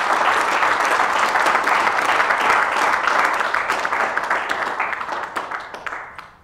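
Applause from a roomful of people clapping, a dense patter of many hands that dies away about six seconds in.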